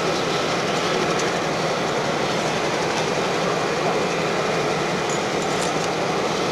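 EMD E9 diesel passenger locomotive running, a steady engine noise that does not change.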